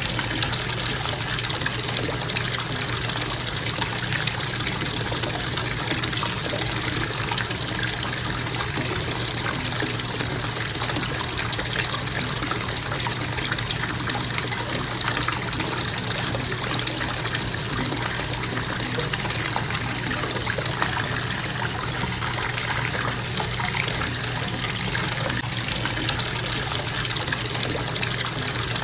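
Bathtub faucet running in a steady, constant stream, water splashing into the tub as it fills.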